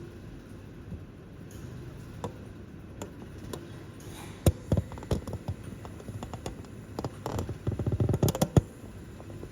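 An irregular run of sharp clicks and taps, starting about halfway through and coming thick and fast near the end, over a low steady background noise.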